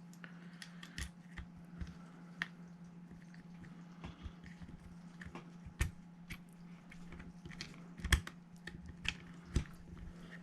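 Small parts of a gas-blowback airsoft rifle's trigger group being handled and fitted by hand: scattered light clicks and taps, with a few sharper knocks in the second half, over a steady low hum.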